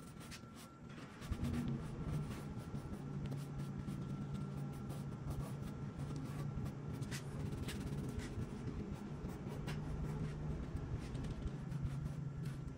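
Rag rubbed by a gloved hand over the bare wood of a drawer, wiping on stain: soft, scratchy scuffing with small ticks, over a steady low hum.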